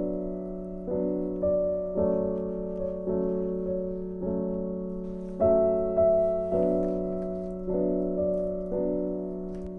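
Background piano music: gentle chords struck every half second to a second, each ringing and fading over a held low note, a little louder about halfway through.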